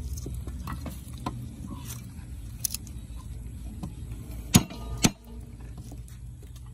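Meat cleaver knocking on a wooden chopping block while cutting garlic: a few light knocks, then two loud ones about half a second apart in the second half.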